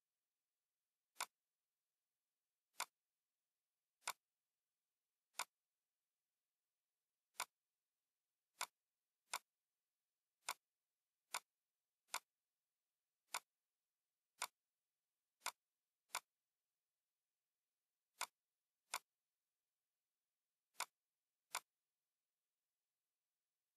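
Computer mouse clicks: about eighteen single sharp clicks at irregular intervals, roughly a second apart, all equally loud.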